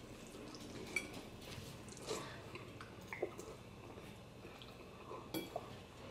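Quiet close-up eating sounds of pasta: soft wet mouth clicks and chewing, with a few short sharp clicks spread through.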